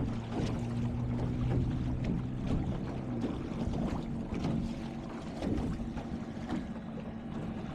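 Water lapping and splashing against the hull of a small sailboat under way, with wind on the microphone. A steady low hum runs underneath; its lower part stops about three seconds in.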